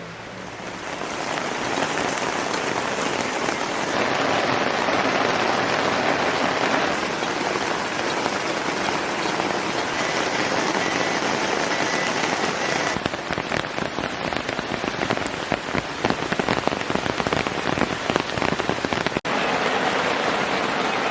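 Heavy rain falling steadily, fading in over the first second or two; from about halfway through, individual drops striking close by stand out in the downpour.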